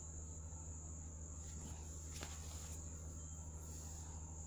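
Quiet room tone: a steady high-pitched whine over a low hum, with a faint tap about two seconds in.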